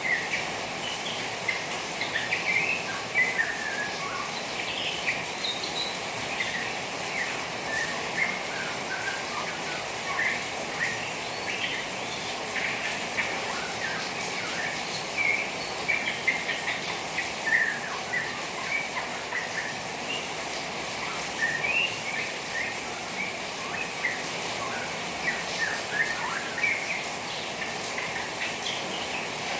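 Juvenile white-rumped shama twittering in many short, quick chirps, the rapid chatter of a young bird, set off by the sound of rain water, which hisses steadily underneath.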